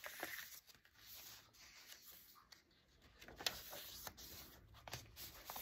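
Faint rustling and brushing of paper pages being turned by hand in a handmade junk journal, with a few soft taps as the pages settle.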